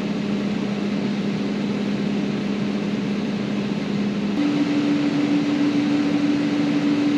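Tractor engine running steadily, heard from inside the cab, as a constant drone over a noise haze; its pitch steps up abruptly about four seconds in.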